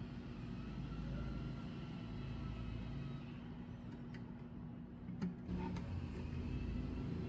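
Low steady rumble with a faint hum, and a few light clicks and taps between about four and six seconds in as the plastic ukulele is handled.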